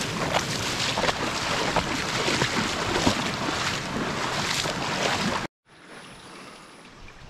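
Stream water rushing and splashing close by, with many sharp splashes; it cuts off abruptly about five and a half seconds in, leaving a much quieter background.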